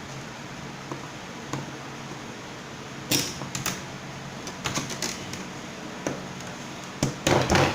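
Knocks, clicks and short scrapes of laser-cut wooden 3D-printer frame parts being handled, worked and pressed into place, over a faint steady hum. The knocks start about three seconds in and are loudest near the end.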